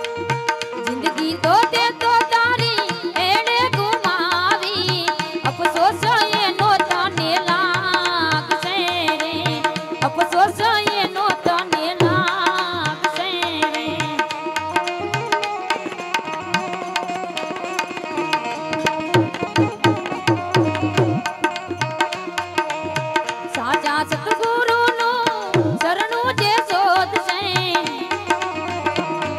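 Live Gujarati bhajan: a woman singing over a steady harmonium drone and a running tabla rhythm. Her voice drops out for several seconds in the middle while the harmonium and drums carry on, then comes back near the end.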